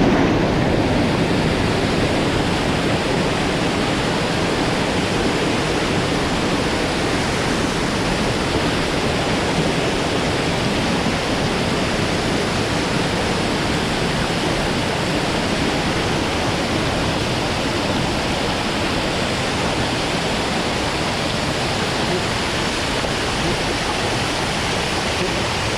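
Mountain stream water rushing, a steady loud wash of noise with no break.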